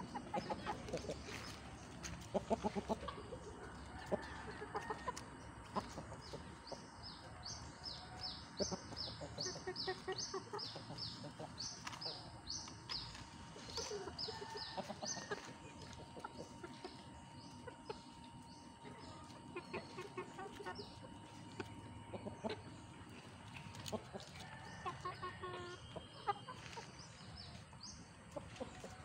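Bangkok gamefowl clucking, with long runs of quick, high chirps through the middle.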